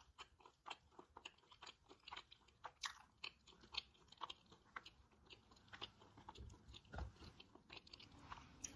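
Faint chewing of crispy fried chicken, with scattered small crunches and mouth clicks.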